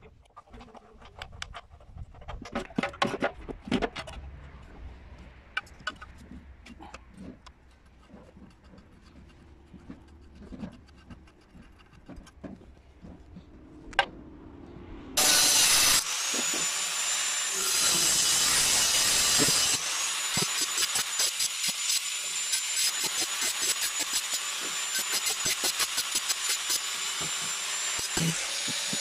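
Scattered clicks and knocks as a washing-machine tub and its metal spider arm are handled. About halfway through, an angle grinder starts up loudly and runs steadily, cutting through a square bar with a high whine.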